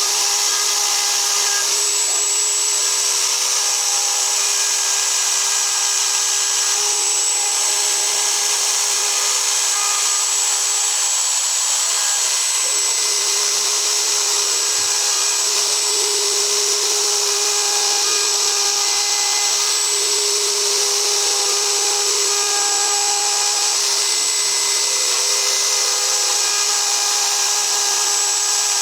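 ASIMA AR 1200 CNC router spindle running and cutting a die board. It gives a steady high-pitched whine over cutting hiss, with faint tones that shift every second or two as the cut goes on.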